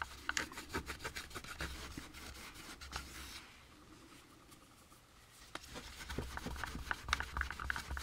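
Cloth buffing dried polish off a plastic model car body in quick rubbing strokes. The rubbing pauses for about two seconds in the middle, then starts again.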